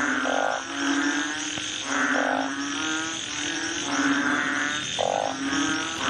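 Several frogs croaking in a chorus: pulsed, rattling calls repeat about once a second over a low held note, with another shorter croak every two to three seconds.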